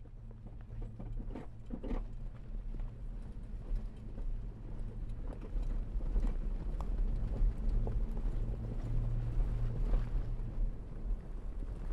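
Off-road vehicle on Nitto Trail Grappler mud-terrain tires driving slowly over a rocky dirt trail: a low, steady engine hum with scattered knocks and crunches of stones under the tires, getting louder as it goes.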